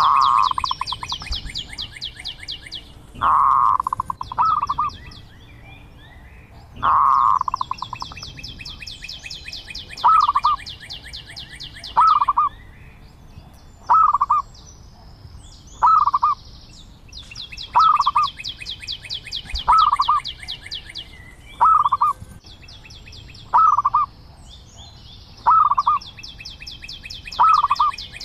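Zebra dove cooing: short, staccato notes about every two seconds, with a few longer, drawn-out coos in the first several seconds. Behind them, a fast, high trill comes in stretches of a few seconds, four times.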